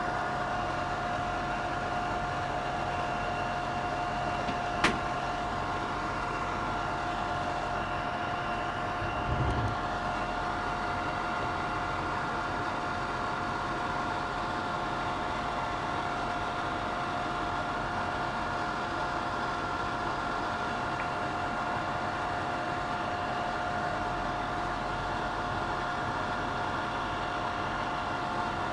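24-volt cabinet extraction fan running steadily, a constant rushing hum with a steady whining tone. A single sharp click about five seconds in and a brief low thump near ten seconds.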